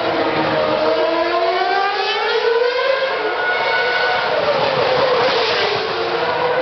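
Racing car engines from trackside: several high-pitched engine notes sweep up and down and overlap as the cars accelerate, change gear and pass.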